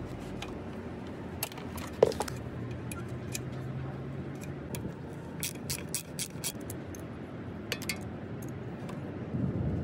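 Small metal parts and a wrench clinking and tapping as a circular saw's steel base plate is unbolted by hand. There is one sharp knock about two seconds in, then a quick run of light clicks around the middle and a few more near the end, over steady background noise.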